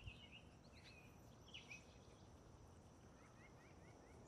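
Near silence with faint bird chirps: a few calls in the first two seconds, then a quick run of short rising chirps near the end.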